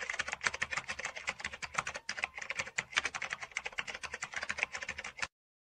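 Fast typing on a computer keyboard: a dense run of sharp key clicks, many a second, that cuts off suddenly about five seconds in.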